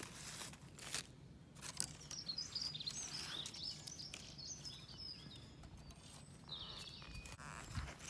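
A sharp snip of Felco 2 pruning secateurs at the start, then a few softer clicks, with small birds chirping in the background from about two to five seconds in.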